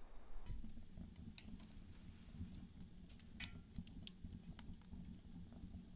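Logs burning in a small steel wood-burning stove with its door open: scattered sharp crackles and pops over a low steady rumble.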